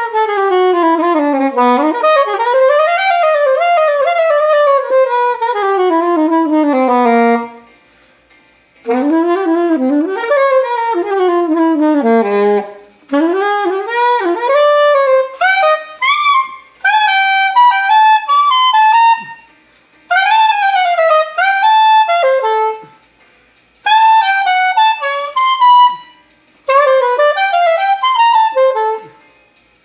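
A solo wind instrument playing a fast melody, one note at a time, in quick running phrases separated by short pauses.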